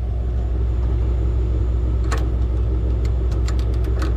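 A vehicle engine idling with a steady low rumble. Steel chain links clink once about two seconds in, then several times near the end, as the chain and grab hook are handled.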